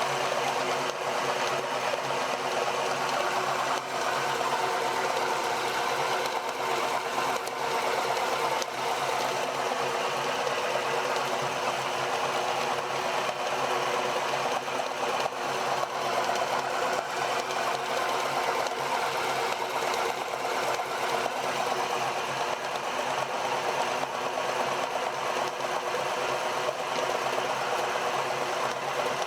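Electric meat grinder running steadily, its motor and gears giving an even hum with no change in pitch or level.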